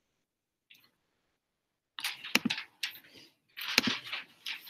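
Close-up rustling and clicking handling noise, as if the microphone or recording device is being touched. It starts about two seconds in after near silence and comes in several crackly bursts with sharp clicks.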